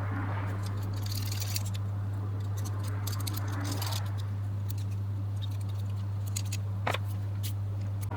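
Steady low electrical hum, with light clicks and short scrapes of a zoom lens's parts being handled and turned, and one sharper click about seven seconds in.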